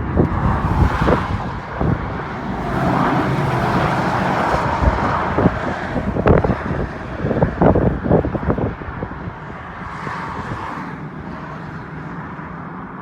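Steady rushing of passing road traffic, swelling and then easing off near the end, with wind thumping on the microphone.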